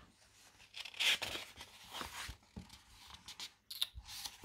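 Magazine pages being turned by hand: a few short paper rustles, the clearest about a second in and another near the end, with light taps of the paper.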